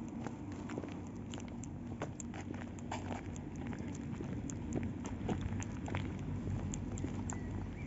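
Footsteps crunching over rough, gritty ground: many irregular small clicks and crackles over a low steady hum.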